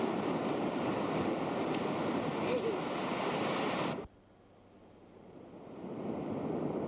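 Beach ambience on a camcorder's microphone: a steady rush of wind and surf. It cuts out suddenly about four seconds in at a recording cut, then fades back up a second or two later.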